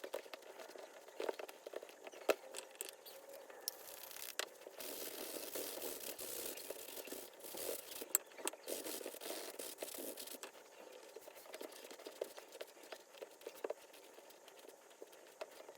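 Hands working on an old leather baseball glove: scattered clicks and taps, with a stretch of steady rubbing hiss from about five seconds in until about ten seconds in.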